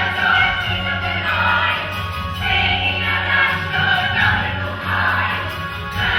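A group of young performers singing together in chorus over musical accompaniment, from a stage musical.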